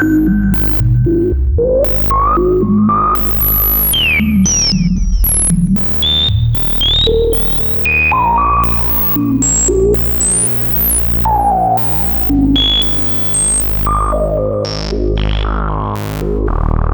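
Moog Source analog synthesizer playing a deep, sustained bass line under a lead melody whose notes slide between pitches, with sharp percussive hits throughout.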